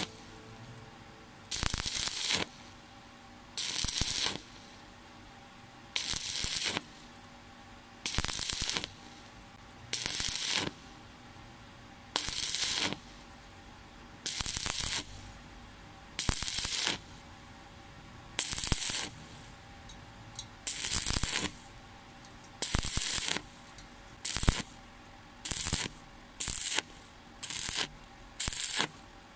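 Stick-welding arc crackling in short bursts of under a second, about every two seconds, as the electrode is struck and pulled away again and again to lay a stitch weld. In the last few seconds the bursts become shorter and come faster.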